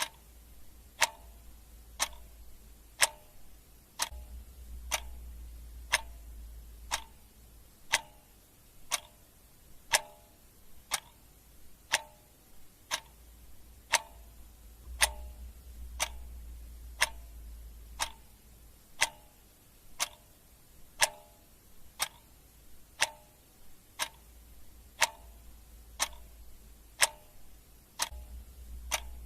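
Ticking clock sound effect: a steady, sharp tick once every second.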